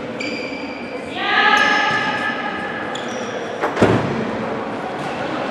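Indoor tchoukball play in an echoing sports hall: sneakers squeaking on the court, a player's loud held shout about a second in, and one sharp smack of the ball just before the four-second mark.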